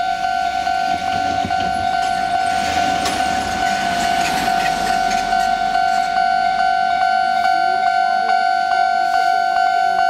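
Japanese railway level-crossing warning bell ringing steadily, signalling an approaching train as the crossing closes. A car passes over the crossing in the first half.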